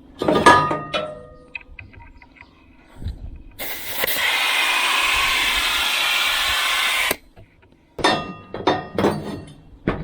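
Compressed air from an air hose hissing steadily into the inner tube of a loader tire for about three and a half seconds, then cutting off sharply. Metallic clanks with a short ringing come before it, and more clattering knocks after it.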